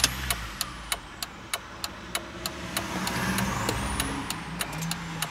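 A van's cab with a steady run of sharp clicks, about three a second, over a low hum.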